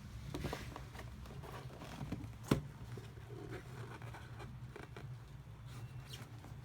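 Football boots and their box being handled during unboxing: light rustling and small clicks, with one sharp click about two and a half seconds in, over a steady low hum.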